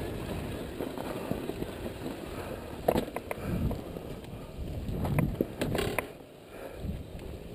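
Dirt bike crawling slowly over loose rock at low throttle: a steady mechanical rattle from the bike, with a few sharp knocks about three seconds in and near six seconds.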